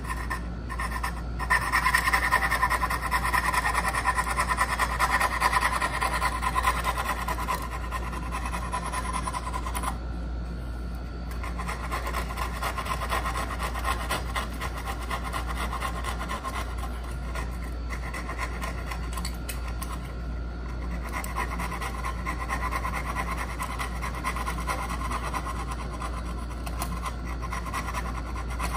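Hand tool rasping on wood in continuous scratchy back-and-forth working, as a dovetail joint is cut by hand, over a steady low hum. It is loudest in the first third, drops off about ten seconds in, and picks up again a couple of seconds later.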